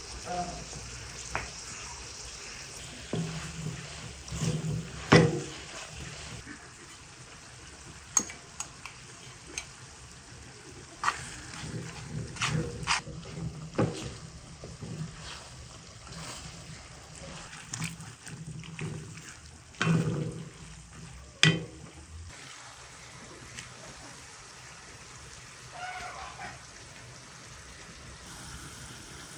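Chopped tomatoes, peppers and onions cooking in a wide frying pan with a soft, steady sizzle, while a wooden spoon stirs them and knocks against the pan now and then, most sharply about 5 seconds in and again after about 20 seconds.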